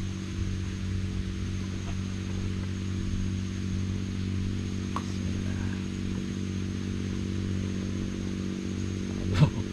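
A small engine running at a steady idle, a constant low hum with no change in speed. Near the end comes one brief sharp sound, the loudest moment.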